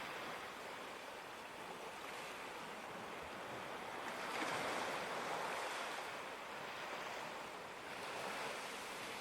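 Ocean surf washing steadily, with a wave swelling up about halfway through.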